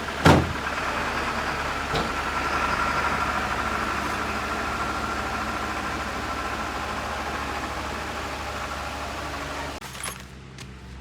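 A vehicle engine running steadily, with a sharp knock just after the start. The sound cuts off suddenly about ten seconds in.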